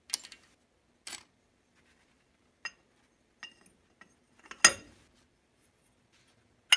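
Small metal carburetor parts clinking as they are dropped into the metal dip basket of a carburetor parts-cleaner can and handled. The clinks come one at a time, some ringing briefly, with a heavier clunk a little past halfway.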